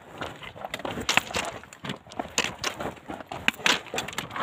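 Footsteps crunching and scraping on loose rock and gravel, with stones clattering underfoot in an irregular run of crunches.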